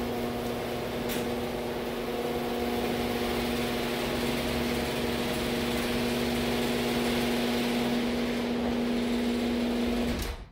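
Electric garage door opener running as the overhead door rolls open: a steady motor hum with one constant tone over a hiss, cutting off shortly before the end.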